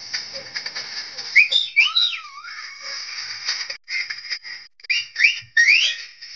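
People whistling in celebration: several quick rising whistles, bunched together about a second and a half in and again near the end, over a steady high whistle-like tone.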